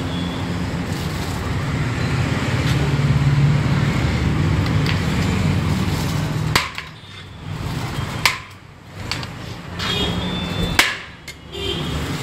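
Steady background rumble with a low hum, then three sharp knocks: the first about halfway through, another a couple of seconds later and one near the end.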